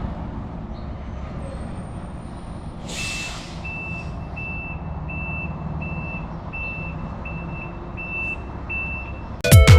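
Truck engine running low and steady while its reversing alarm beeps at an even pace, nearly twice a second. A short hiss sounds about three seconds in, just as the beeping starts.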